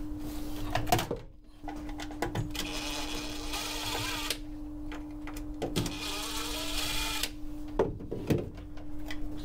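Cordless DeWalt drill-driver whirring in two runs of about a second and a half each, backing out the screws that hold an old bilge pump base. Clicks and knocks of handling come between the runs, over a steady low hum.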